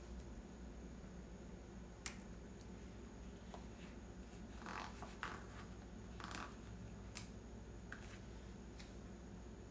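Planner stickers and paper being handled on a desk: a few faint clicks and short scratchy rustles, one click about two seconds in and the rest between about five and nine seconds.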